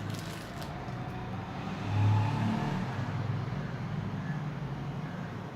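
Low engine rumble of a motor vehicle, swelling to its loudest about two seconds in and then running on more steadily.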